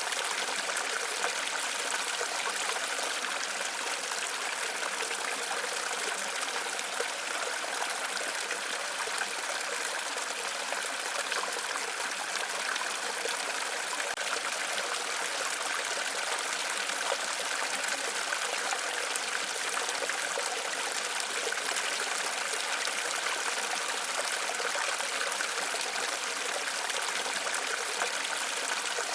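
Waterfall: a steady, unbroken sound of falling water, bright and hissy with little low rumble.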